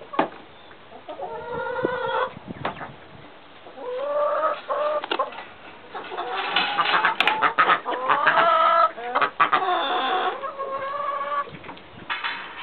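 A flock of chickens clucking and calling, with many overlapping calls that are busiest in the middle, mixed with sharp clicks.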